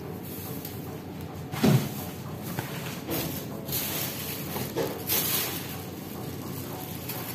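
Thin clear plastic sheet rustling and crinkling in irregular bursts as it is handled and smoothed out, with one dull thump a little under two seconds in.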